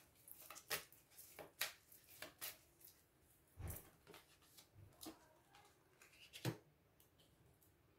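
Faint, scattered clicks and soft taps of a deck of reading cards being handled and shuffled as one or two cards are drawn, with near silence between the taps.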